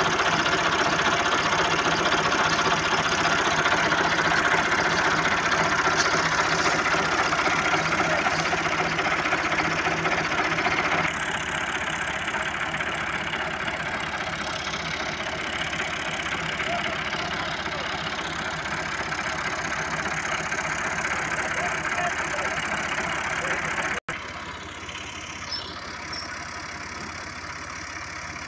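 Tractor diesel engine idling steadily. The level drops about eleven seconds in and again near the end.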